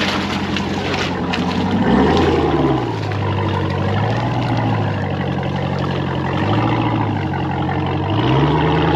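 Ram 1500 TRX pickup's supercharged V8 engine revving up and easing off four times as the truck crawls through deep mud ruts.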